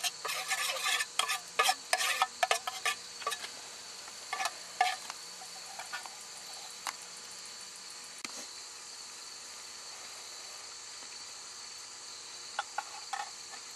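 Metal spoon stirring and scraping in a metal cup of thick acorn mush, clinking busily for the first few seconds, then only now and then, and mostly stopping after about seven seconds. A steady high insect trill runs underneath.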